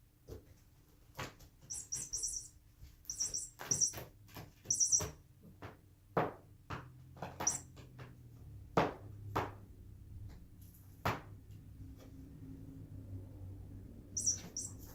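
Chirping bird toy giving short, high chirps in small clusters, mixed with scattered sharp knocks and taps.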